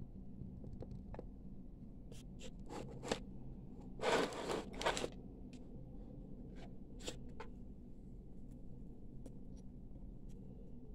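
Brass wire being handled over a stone bench block: scattered light clicks and taps, with a short scraping rustle about four seconds in. A steady low hum runs underneath.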